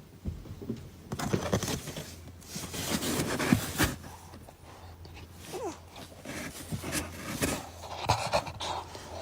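A dog panting in irregular breathy bursts, with a few sharp clicks.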